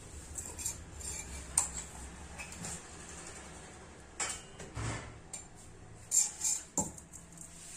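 Metal kitchen utensils clinking and clattering: a sharp knock about a second and a half in, a couple more around four to five seconds, and a quick cluster of clinks between six and seven seconds, over a low steady hum.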